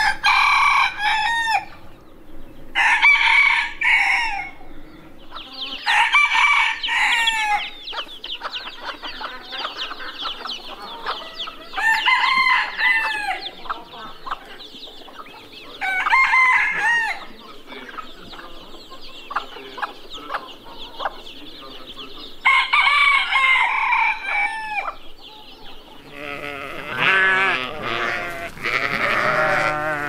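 Roosters crowing, about six crows a few seconds apart, each lasting a second or two. Near the end a flock of sheep starts bleating.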